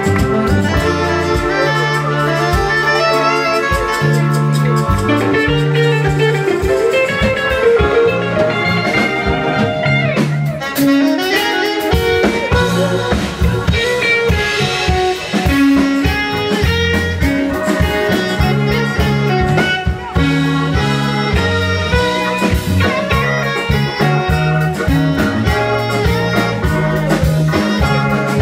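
Live jazz band playing: saxophone and electric guitar over grand piano, drums and a moving bass line.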